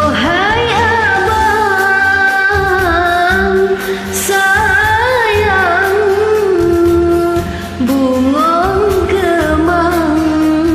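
A singer holding long, ornamented notes of an Acehnese song over a karaoke backing track.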